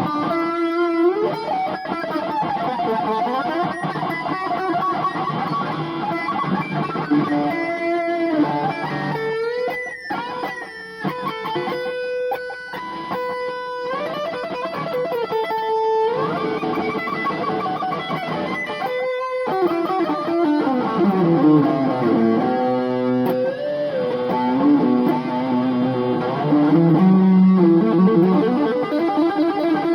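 Electric guitar playing a rock and roll solo: single-note lines with held, bent notes, and a run sliding down into the low strings about two-thirds of the way through.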